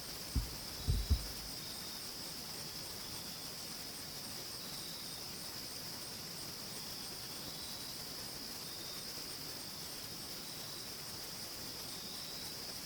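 A steady evening chorus of crickets and other insects, a continuous high-pitched trilling with fainter chirps repeating beneath it. A few soft low thumps sound about half a second to a second in.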